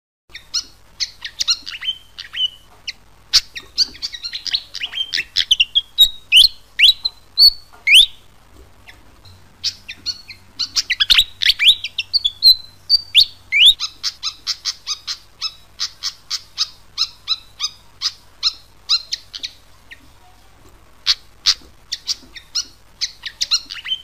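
Fantail (sikatan kipasan) singing: bursts of high, squeaky notes that slide up and down, then a long quick run of short, sharp chip notes, with a couple of brief pauses between phrases.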